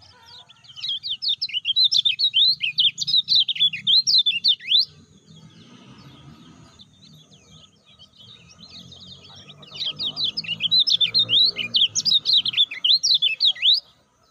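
Kecial kuning, a white-eye, singing in two long bursts of fast chattering notes that rise and fall. The first runs from about a second in to about five seconds; the second starts after a pause of several seconds and stops just before the end.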